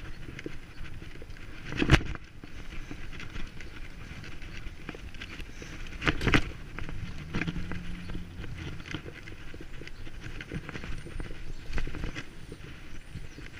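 Bicycle ridden over rough ground: steady tyre and trail noise with rattling from the bike, and two hard knocks, about two seconds in and about six seconds in.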